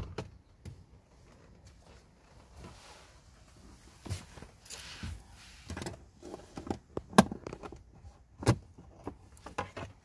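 Plastic clicks and knocks of a car glove box being opened and its trim pieces unclipped to reach the cabin air filter: a click at the start, then a quick run of snaps and taps in the second half, with two louder snaps near the end.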